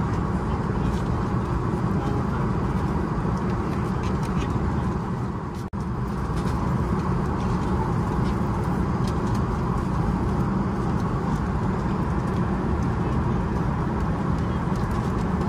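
Steady drone of an Airbus A380's passenger cabin, with one brief drop about six seconds in.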